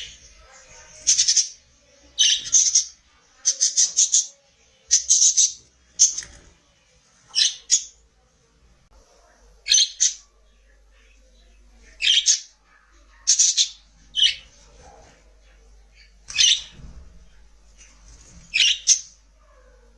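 Budgerigars giving short, harsh, high-pitched chirps and squawks in quick bursts about every second or two, with brief pauses between them.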